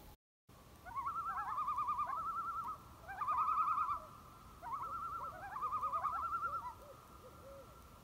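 A bird-like call, a rapid quavering warble repeated in about four phrases with short rising slides between them, over a faint steady tone.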